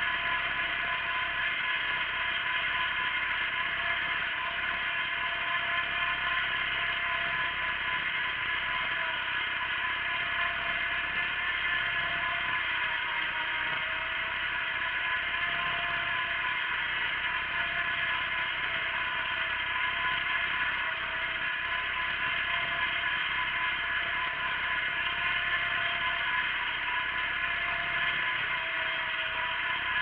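Wheel Horse garden tractor running steadily under load while pulling a single-bottom plough through the soil, with a faint whine that wavers a little.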